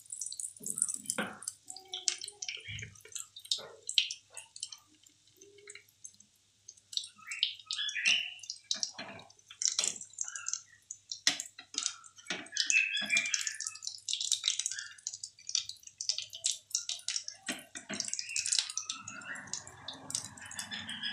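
Aloo tikkis (potato patties) shallow-frying in hot oil in a pan: irregular sizzling with many small crackling pops from the oil.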